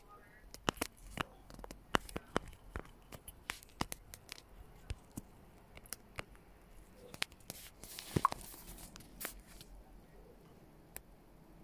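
Irregular sharp taps, a few a second, from typing a message on a phone's touchscreen keyboard. A short rustling hiss comes about eight seconds in.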